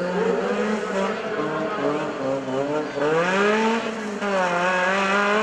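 Off-road race vehicle's engine revving under load. Its pitch climbs sharply about three seconds in, drops back, then holds high again.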